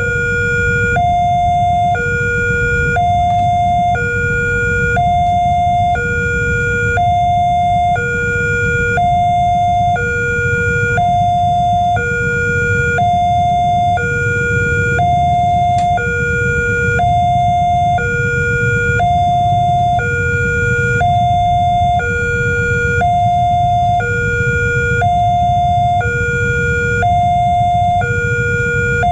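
Railway level crossing warning alarm sounding a two-tone electronic signal, a lower and a higher tone alternating about once a second without pause, the warning that a train is approaching the crossing.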